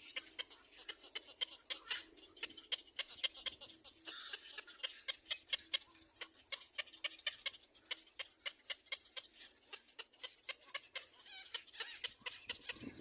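A baby bird calling in a rapid run of short, sharp chirps, about five a second, the repeated begging calls of a fledgling following its parent.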